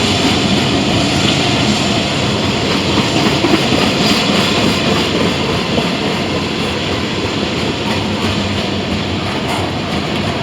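Freight train rolling past close by: a steady rumble of steel wheels on the rails with a light clickety-clack, slowly getting a little quieter.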